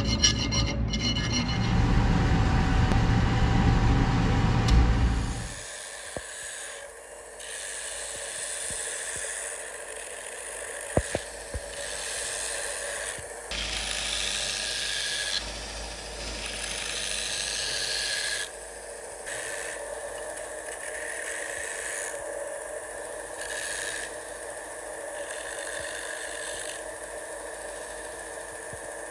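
Hand file rasping in repeated strokes on the steel edge of a stainless cleaver blank for the first five seconds or so. Then an electric belt grinder running steadily with a humming whine while the cleaver's wenge-wood handle with steel spacers is pressed to the belt, the grinding hiss swelling and easing every second or two.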